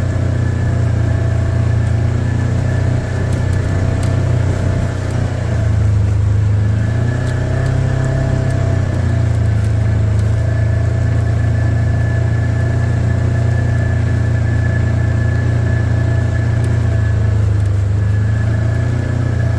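Engine of a vehicle being ridden, running steadily with an even low hum and a faint steady whine above it.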